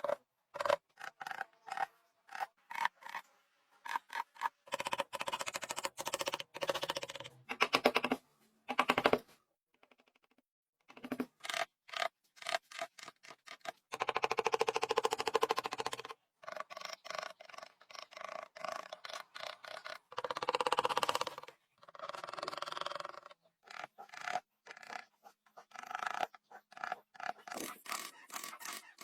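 Wood being worked by hand with a file or sandpaper in repeated scraping and rubbing strokes. Quick runs of short strokes alternate with several longer stretches of steady rubbing, with a brief pause about ten seconds in.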